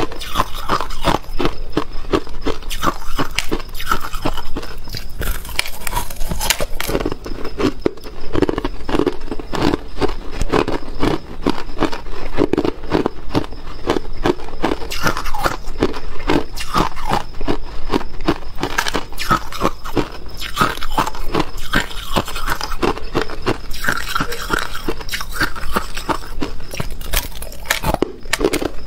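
Crushed ice being bitten and chewed, a continuous run of crisp crunches and cracks, several a second.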